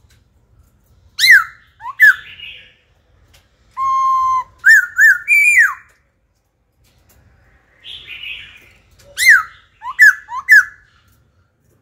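Black-throated laughingthrush singing: loud, varied whistled phrases with sharp downward slurs, mixed with harsh rasping notes and one held level whistle. The song comes in three bursts with a pause in the middle.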